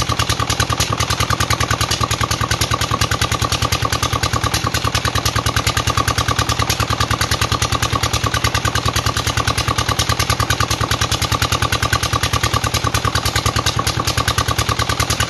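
Engine-driven water pump running steadily at a constant speed, its engine beating in an even, rapid rhythm.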